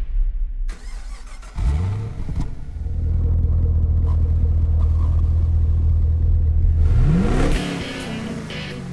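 Chevrolet Camaro's 6.2 L V8 starting about a second and a half in, then idling with a deep, steady note. Near the end it is revved once: the pitch sweeps sharply up and falls back down.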